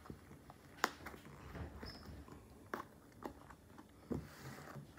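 A few light clicks and knocks of a cardboard collector's box being handled and set down on a table, the sharpest about a second in and several softer ones later.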